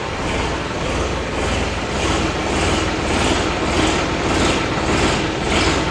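Solis 2516 compact tractor's diesel engine running steadily.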